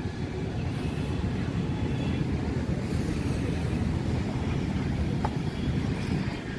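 Steady low rumble of road traffic, with one short sharp click about five seconds in.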